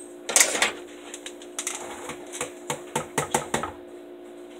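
Kitchen handling sounds: a loud clatter about a third of a second in, then a run of light, irregular taps and clicks for about two seconds.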